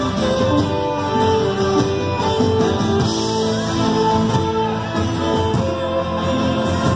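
Irish folk band playing live through a PA: fiddle over strummed acoustic guitar and upright double bass.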